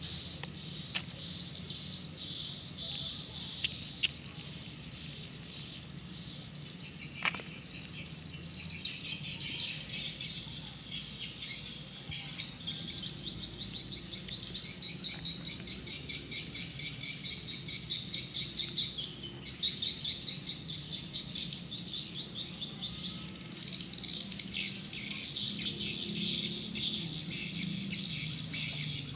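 Many swiftlets chirping and twittering in a dense, rapid high chatter. For the first several seconds a steady high trill carries over it, then gives way to the busy chirping.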